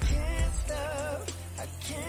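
Background music: a wavering sung or played melody over a steady bass and a regular beat.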